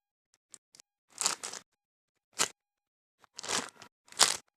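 Short crinkly rustles of plastic packaging as a squishy toy is handled, in four bursts about a second apart.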